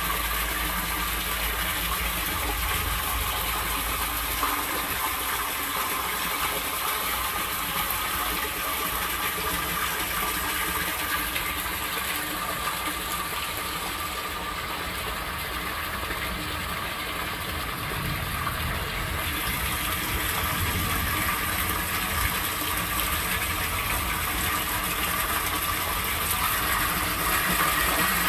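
Steady rush of water in a torrential downpour: rain and runoff pouring and splashing through an outdoor sump pump drainage system.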